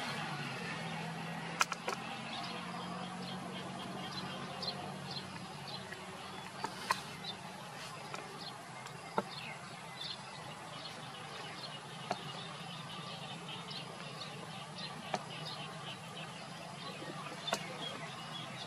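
Outdoor ambience of many faint, quick chirps from small birds over a low steady hum, broken by about half a dozen sharp isolated clicks.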